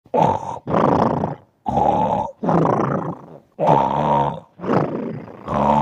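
A series of short, rough growling grunts, about one a second.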